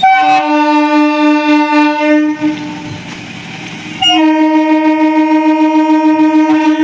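Indian Railways train horn sounding two long, loud blasts, each about two and a half seconds, with a gap of under two seconds between them.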